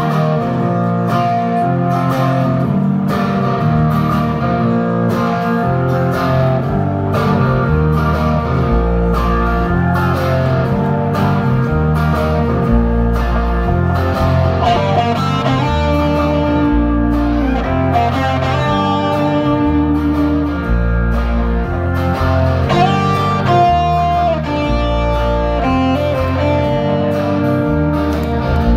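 Live punk rock band playing the slow, instrumental opening of a song on electric guitars with drums. Heavy bass notes come in about eight seconds in.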